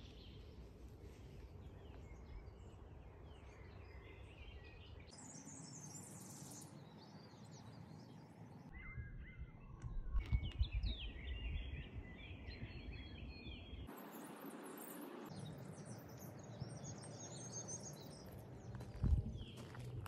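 Small birds chirping and singing in short calls over a low, steady outdoor rumble. The background changes abruptly a few times, and a few low thumps come near the end.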